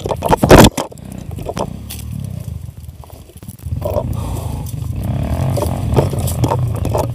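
A few loud knocks and clatter as the motorcycle goes down in the brush, then its engine running at a steady low rumble, getting stronger about three and a half seconds in.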